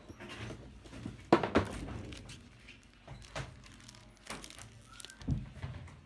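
Paper manuals being picked up and handled, crinkling and rustling, among several sharp clicks and knocks, with a dull thud about five seconds in.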